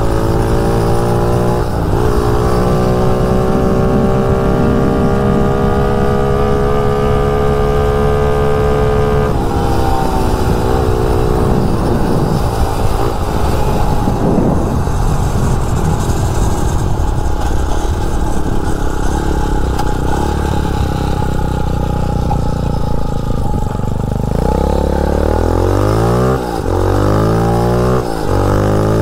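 Motovox mini bike's 250cc dirt bike engine running hard at speed, holding high, slowly climbing revs, then dropping off about nine seconds in. Near the end the revs fall and rise in several quick sweeps as the bike slows.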